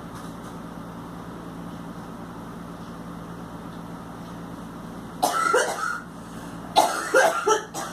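A girl coughing hard: one burst of coughs about five seconds in, then a quick run of harsh coughs near the end, the kind of coughing that comes with being sick.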